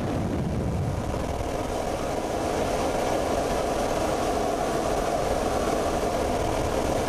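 Helicopter engine and rotor noise heard from inside the cabin through an open door: a steady, unbroken drone.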